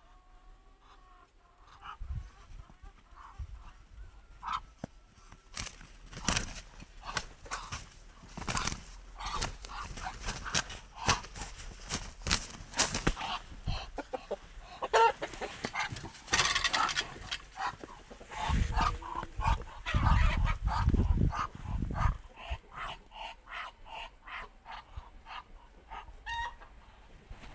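A rooster and a Muscovy drake fighting: fowl clucking over a rapid run of short, sharp scuffling sounds, busiest in the middle, with a few low rumbles later on.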